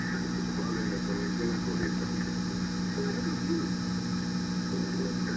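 Small lathe running steadily, its electric motor giving an even hum with a constant pitch.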